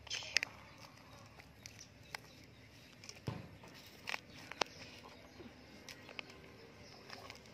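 Soil being scraped by hand out of a plastic toy dump truck's bed and spilling onto the ground: soft rustling and pouring with scattered light clicks of plastic, the sharpest about half a second in and again around four seconds.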